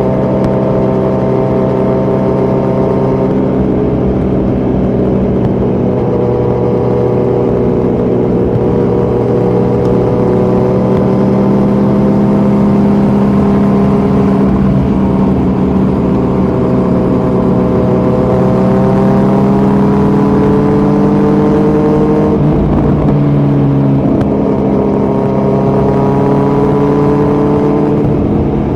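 2018 Kawasaki Z900's inline-four engine with Delkevic headers and a Yoshimura muffler, no dB killer, running loud at fairly steady revs on the move. The pitch creeps up slowly, drops suddenly about 22 seconds in, then holds steady again.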